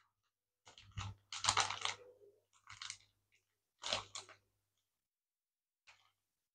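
Clear plastic bags of electronic kit parts crinkling as they are handled, in four short bursts that stop about four and a half seconds in.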